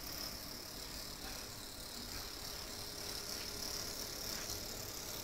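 Faint, steady whir of an electric bicycle's rear hub motor spinning the wheel.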